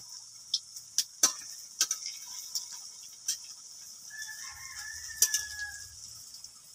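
Gulab jamun sizzle in bubbling hot oil in a wok, with a steady hiss, while a metal spatula clicks and scrapes against the wok several times as the balls are turned. A faint, drawn-out animal call sounds in the background from about four to six seconds in.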